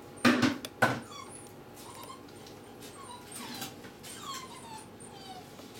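Basenji whining and whimpering in short, falling cries, repeated every half second to a second. Two loud sharp sounds come near the start.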